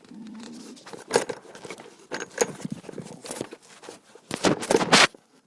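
Handling noise from a phone or tablet being fitted into place as a camera: irregular knocks, taps, scrapes and rubbing right on its microphone, with the loudest cluster of knocks near the end.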